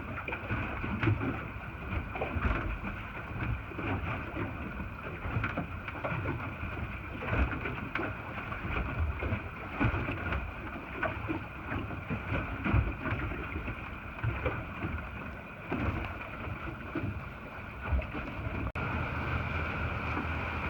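Wind buffeting the microphone in uneven low gusts, over a steady faint hum.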